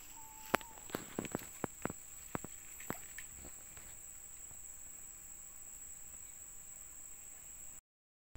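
Steady high-pitched drone of insects, with a scatter of light, sharp clicks during the first three seconds. The sound cuts out briefly near the end.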